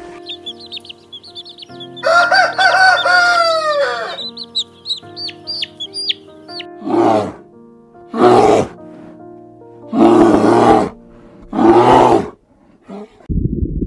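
Chickens over background music: small high chirps, a rooster crowing for about two seconds, more chirps, then four loud, harsh calls spaced about one to two seconds apart.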